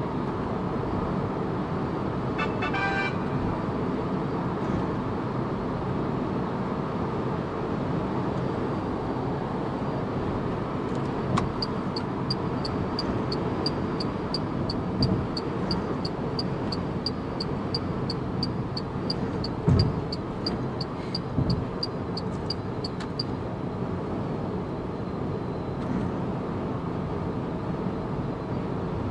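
Steady tyre and wind noise inside the cabin of a Renault Zoe electric car cruising at highway speed, about 110 km/h, with no engine sound. A brief beep sounds about three seconds in. Through the middle a fast, high ticking runs at about three or four ticks a second, and there are a couple of low bumps from the road.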